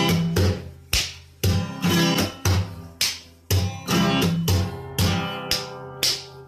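Background music: a plucked-string tune, probably guitar, struck in sharp strokes about every half second, each note ringing and fading.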